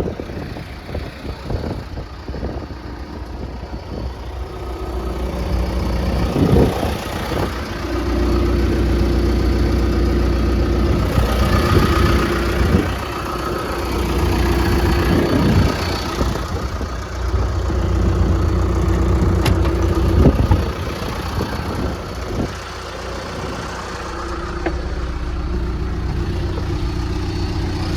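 John Deere 650J crawler dozer's diesel engine running steadily at idle, getting louder about a third of the way in, with a few short knocks along the way.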